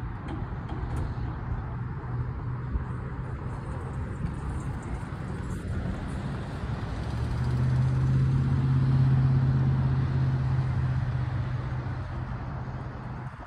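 Road traffic rumbling steadily, with a motor vehicle's low engine drone swelling from about halfway through, loudest about two-thirds of the way in, then fading as it passes.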